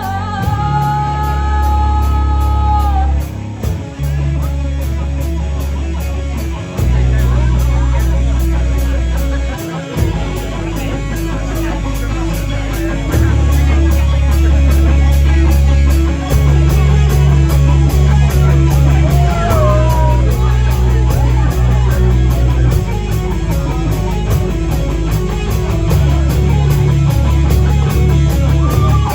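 Rock band playing live: electric guitar, bass guitar and drums, with heavy bass notes changing every few seconds. A held high note fades out in the first few seconds, and a short falling slide comes about two-thirds of the way through.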